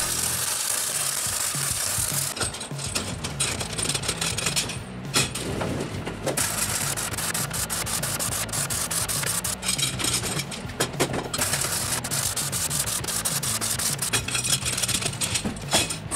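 Arc welding crackling as chain links are welded onto flat steel bars. It comes in stretches that stop and restart several times.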